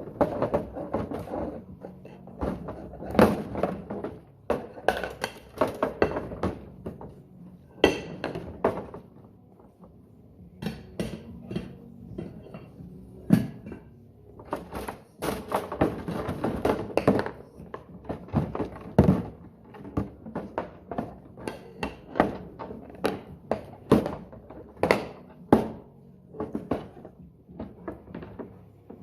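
Dishes being washed by hand: irregular clinks and knocks of crockery set down and handled, some ringing briefly, a few every second.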